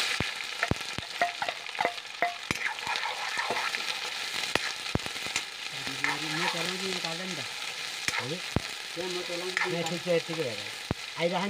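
Sliced onions and green chillies dropped into hot oil in a steel karahi start sizzling at once, and go on frying steadily. A steel spoon stirring them clicks and scrapes against the pan again and again.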